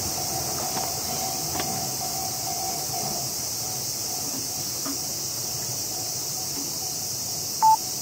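Japanese level-crossing warning bell ringing as a train pulls away, falling silent about three seconds in, over a steady high hiss. One short, loud beep sounds near the end.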